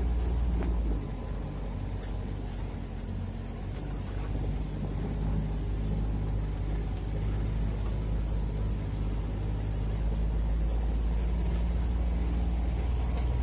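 Off-road vehicle's engine running as it drives slowly across a waterlogged grass field, heard from inside the cab. The engine note eases off about a second in and builds again gradually over the next few seconds.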